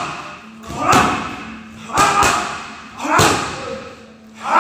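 Boxing gloves and shins striking Muay Thai pads: sharp slaps, about one a second, five in all with a quick double about two seconds in.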